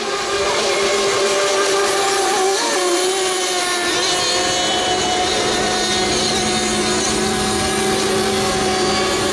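Several FSR-O radio-controlled model racing boats running flat out together, their small two-stroke engines making a steady high-pitched whine of several overlapping pitches that shift slightly as the boats pass.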